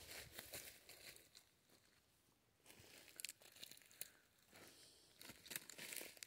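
Footsteps rustling and crunching through dry leaf litter on a forest floor, in an uneven run of soft crackles with a short lull about two seconds in.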